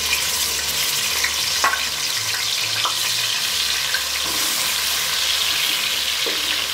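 Chopped onions sizzling in hot ghee in an aluminium karahi, stirred with a wooden spatula that knocks against the pan a few times.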